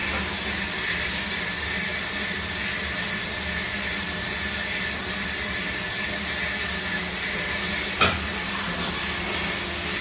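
Moyer Diebel 1000HT commercial dishwasher running a cycle: a steady hiss with a thin whine and a low hum. A single sharp click comes about eight seconds in.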